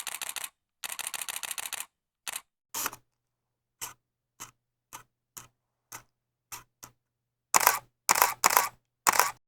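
Camera shutters firing. There are two rapid continuous-shooting bursts in the first two seconds, then a run of single shutter clicks about one every half second, and four louder, longer shutter releases near the end.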